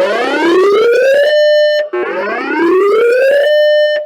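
Siren-style emergency alert tone in a weather warning broadcast: a wail that rises in pitch over about a second and a half, holds briefly, cuts off and starts again, twice.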